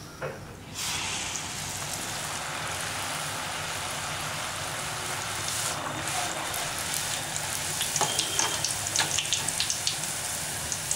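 Hot oil sizzling hard as a batter-coated rose-cookie mould is plunged in about a second in. The sizzle runs on steadily as the achu murukku batter deep-fries, with sharp crackling pops in the last few seconds.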